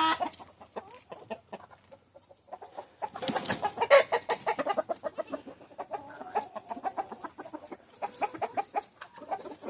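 A flock of hens in a pen, clucking in short, irregular calls from many birds at once. The clucking thins out briefly and then grows busier from about three seconds in.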